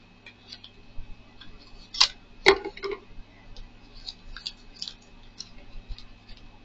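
Scissors and a small cardboard box being handled and opened: scattered light clicks, snips and scrapes, with two louder snaps about two seconds in.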